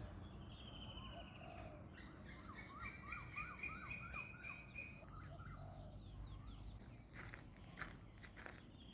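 Several birds calling: a falling trill near the start, then a quick run of about six repeated chirps under a steadier, higher piping note. A few soft clicks follow near the end.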